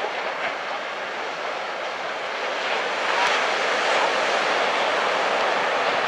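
Rushing noise of small breaking surf, swelling louder about halfway through and holding there.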